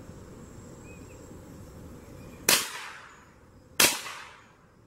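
Two shots from a Remington Nylon 66 semi-automatic .22 LR rifle, about a second and a quarter apart, starting about two and a half seconds in, each trailing off in an echo.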